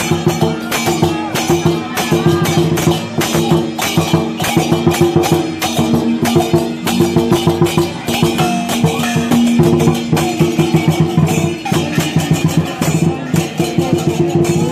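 Chinese dragon dance percussion band playing: drum, cymbals and gongs struck in a fast, dense rhythm, with ringing tones held underneath.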